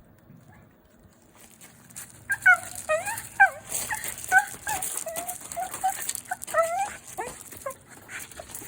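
West Highland white terrier whining excitedly at a reunion with its owner: a rapid string of short, high, wavering whines that starts about two seconds in and tapers off near the end.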